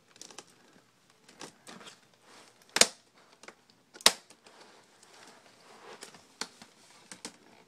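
Light clicks and taps of a plastic laptop case being handled and pried apart, with two sharp snaps about three seconds and four seconds in.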